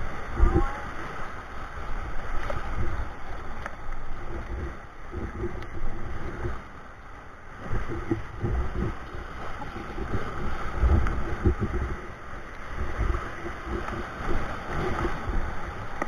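Whitewater rapids rushing around an inflatable raft, with paddle strokes splashing and irregular low buffeting of wind and water on the microphone.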